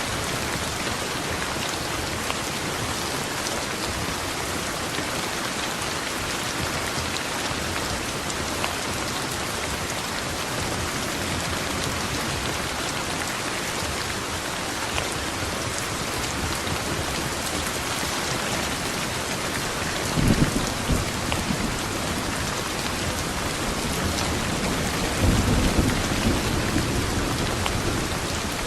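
Steady rain hissing, with two low rumbles of thunder, one about twenty seconds in and a longer one about twenty-five seconds in.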